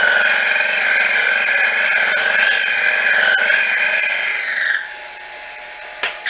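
Grizzly mini mill running, with the boring head's brazed-carbide bit cutting a V-belt pulley bore: a loud, steady high-pitched whine that cuts off suddenly about three-quarters of the way through, followed by a short click near the end.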